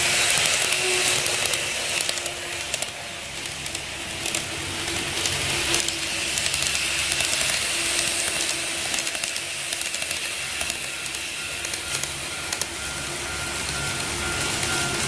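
KATO model trains of the 731 series and 789 series 1000 running past on the track: a steady hiss with a faint motor whine and frequent small clicks of the wheels over the rail joints. A higher steady tone joins about two-thirds of the way in.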